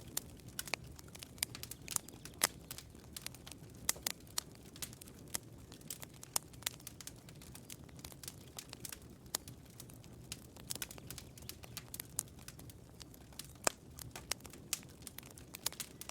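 Campfire crackling: burning wood giving off frequent, irregular sharp pops and snaps over a low, steady rumble.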